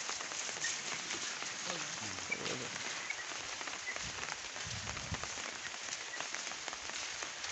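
Steady hissing patter made of many small ticks, with faint distant voices now and then.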